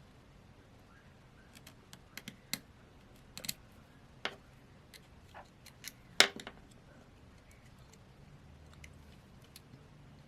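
Small hand tools clicking and tapping against a smartphone's internal parts during disassembly, in scattered irregular ticks, with the sharpest tap about six seconds in.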